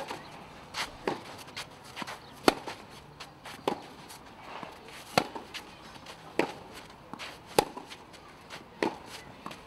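Tennis ball struck back and forth by rackets in a clay-court rally: a sharp pock about every second and a quarter, with softer ball bounces between.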